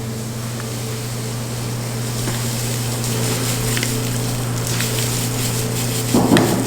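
A kitchen appliance's motor or fan running with a steady hum, with a few faint light clicks.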